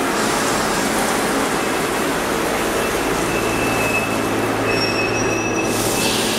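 Santiago Metro rubber-tyred train running alongside the station platform, a steady rolling noise. About halfway in, a thin high whine and a low hum join it.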